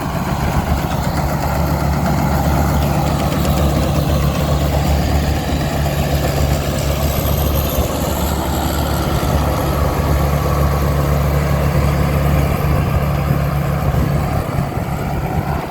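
Rice combine harvester's Isuzu diesel engine running steadily under load, with a steady low drone and the rattling clatter of the machinery.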